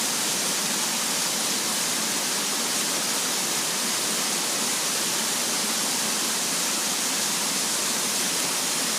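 Steady, even rush of fast-flowing water, a continuous hiss with no breaks or changes.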